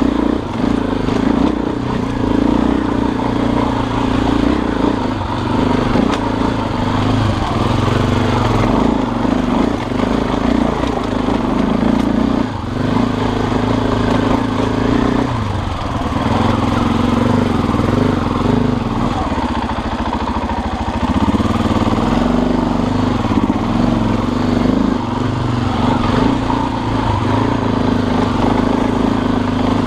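Dirt bike engine running while being ridden along a trail, its pitch shifting and dipping briefly a few times as the throttle changes.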